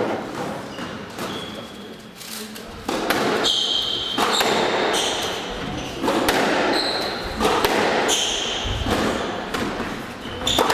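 Squash rally: the ball repeatedly struck by rackets and slapping off the walls, heard as sharp knocks in a reverberant court, with short high squeaks of court shoes on the wooden floor recurring from about three seconds in.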